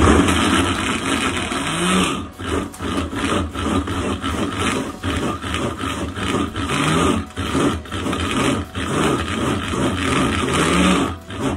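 Electric mini food chopper running in short pulses with brief breaks, its blade churning frozen fruit and milk into a thick cream.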